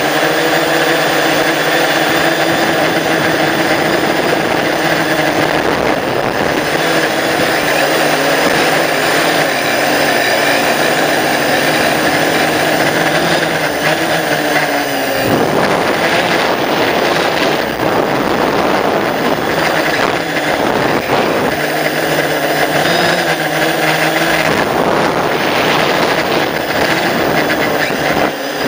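A drone's motors and propellers whirring right at the onboard microphone: a steady buzz of several tones that drops and shifts in pitch about halfway through, then carries on with more hiss.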